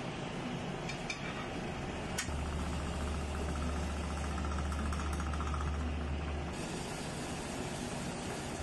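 Steady kitchen hiss and hum with a few light clinks of a utensil against a stovetop pan, about a second and two seconds in. A low hum comes in a little after two seconds and cuts off about four seconds later.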